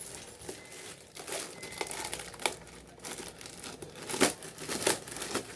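Packaging being handled as a jacket is unwrapped: irregular crinkling and rustling, with two louder crackles near the end.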